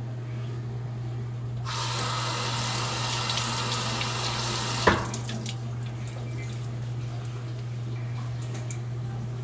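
Water tap running for about three seconds, turned on suddenly about a second and a half in and stopping with a sharp click halfway through, over a steady low hum.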